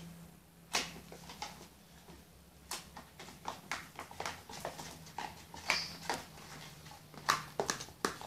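Spoons stirring and scraping thick slime in plastic tubs: irregular clicks and taps, over a faint steady low hum.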